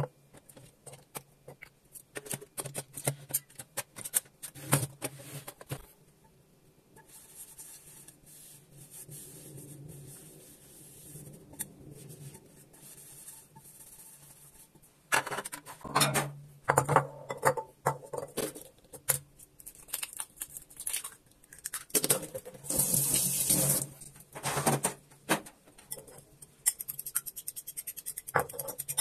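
Kitchen handling sounds: clicks and knocks as a butane canister is fitted into a portable gas stove and a non-stick pan is handled over it, with a faint steady hiss in between. Near the end comes a quick run of taps against a ceramic bowl as the eggs are prepared.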